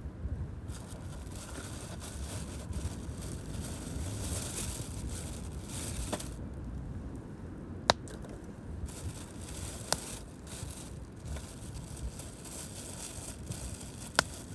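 Pine-cone campfire crackling and hissing, with a few sharp pops; the loudest pop comes about eight seconds in.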